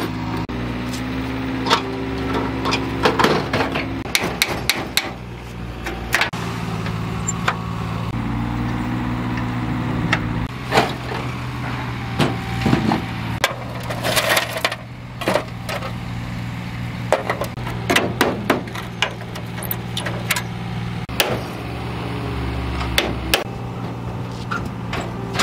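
Irregular metal clanks, knocks and scrapes as a fire-rusted steel car door is wrenched and pried off a burnt-out car body shell.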